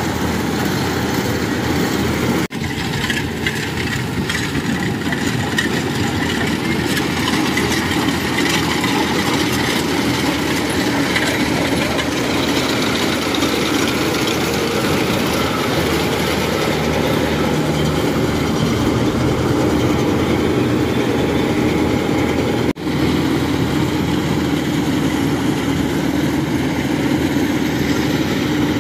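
Kubota 95 tracked rice combine harvester running under load while cutting and threshing rice: a steady diesel engine drone mixed with the noise of the cutting and threshing gear. The sound cuts out very briefly twice, about two and a half seconds in and again about twenty-three seconds in.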